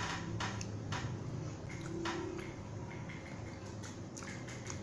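Close-up eating sounds: chewing, with soft wet mouth clicks and smacks scattered through and coming faster near the end.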